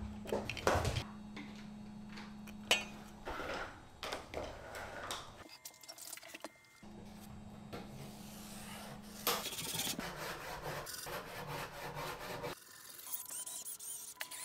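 Door frame boards being marked and handled on the floor: a marker scratching along the wood, boards and a square rubbing and scraping, and a few sharp knocks of wood.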